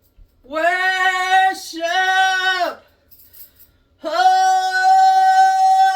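Shofar blown in three blasts: two short notes close together, then a long, steady held note starting about four seconds in.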